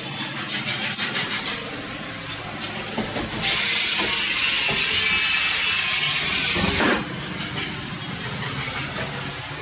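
Corded electric drill running steadily for about three seconds in the middle, then stopping abruptly. Before it come light knocks from the wood-plastic composite ceiling panels being handled against the metal frame.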